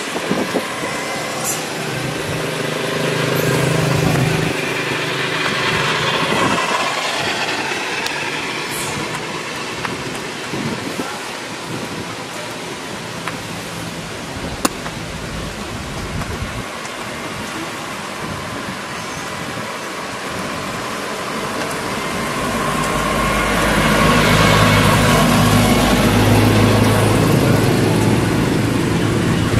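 Motor vehicle traffic passing: a low engine hum with tyre noise that swells twice, the second pass heavier and longer, with a single sharp click near the middle.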